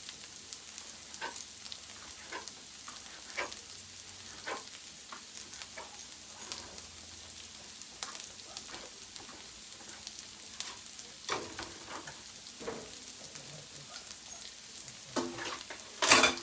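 Eggs with vegetables and cheese frying in a pan, a steady soft sizzle, with a spatula scraping and tapping against the pan every second or so as the eggs are cut up, and a louder clatter near the end.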